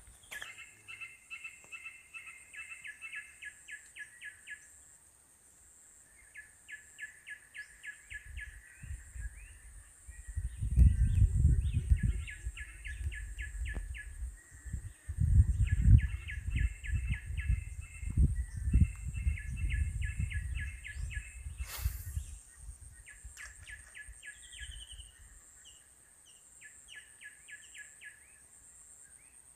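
Low thumps and rubbing as hands press a replacement screen into a phone's frame against a rubber mat, loudest from about ten seconds in until about twenty-two seconds. Behind it, trains of rapid high chirps repeat every few seconds.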